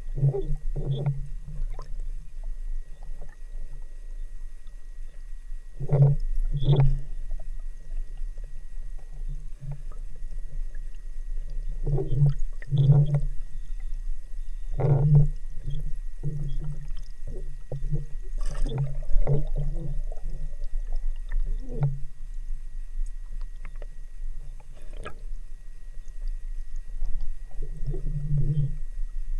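Muffled underwater water sounds: irregular gurgling and bubbling surges with some dull knocks, coming in clusters every few seconds.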